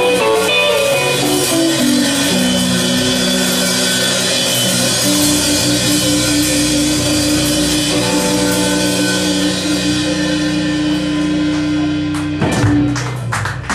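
Blues band playing the closing bars of a song: electric guitar holding a long sustained note over drums and a constant wash of cymbals, then a flurry of final drum and cymbal hits near the end.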